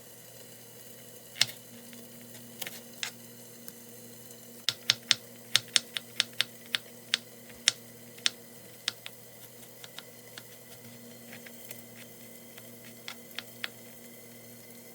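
Kitchen knife chopping a jalapeno pepper and garlic on a cutting board: a run of sharp, irregular taps, quickest in the middle, over a faint steady hum.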